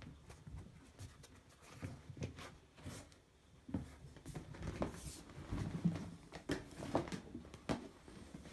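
Heavy thick rubber suit and rubber boots rustling and creaking as the wearer shifts and a hand rubs and pats the wet rubber, with irregular soft knocks and a few brief squeaks.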